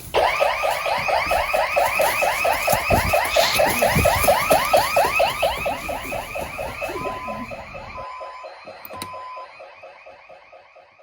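Electronic security alarm siren sounding a fast, repeating pitch sweep, several cycles a second, that fades away over the last few seconds. Three short steady beeps sound near the end.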